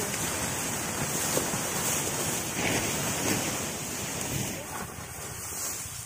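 Steady rustling hiss: a plastic tarp being dragged and spread over cut rice straw, with wind on the microphone.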